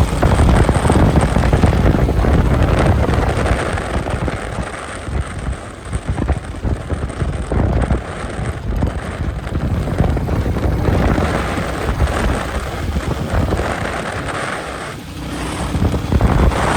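Wind rushing over the microphone mixed with the Royal Enfield Meteor 350's single-cylinder engine and exhaust at cruising speed. The sound drops briefly about fifteen seconds in, then builds again.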